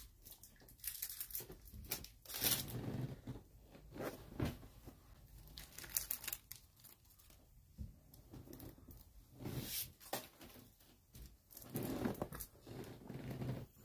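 Faint, irregular rustling and crinkling, like material being handled out of shot, in short noisy bursts scattered through; the loudest comes about two and a half seconds in.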